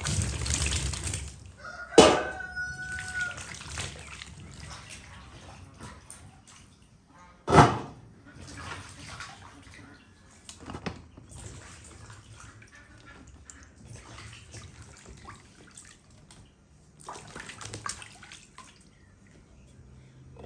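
Mandarins poured and tumbling into a large metal basin of water with a loud splash, then water sloshing and dripping as the fruit is handled and washed. Two sharp knocks stand out, one about two seconds in with a short metallic ring, another near eight seconds.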